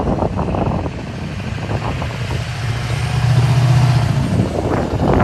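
Pickup truck engine running as the truck drives up and passes close by. The low rumble grows louder from about two and a half seconds in and eases off again just before the end.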